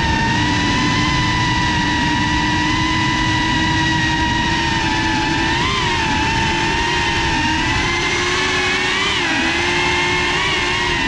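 FPV quadcopter's brushless motors and propellers whining steadily, heard from the drone's own camera, the pitch swelling briefly about six and nine seconds in as the throttle comes up.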